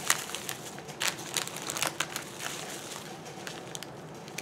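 Clear plastic wrapping crinkling and crackling as it is handled and opened, with scattered sharp crackles that thin out and grow fainter after about two seconds.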